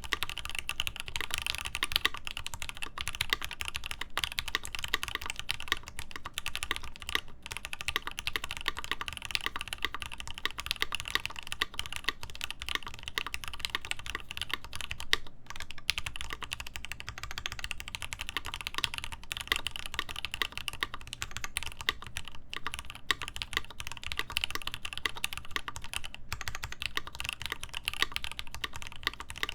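Continuous fast typing on a mechanical keyboard with lubed Gateron Ink linear switches, GMK keycaps on a polycarbonate plate and an internal dampener: a steady stream of dense keystroke clacks with only brief pauses.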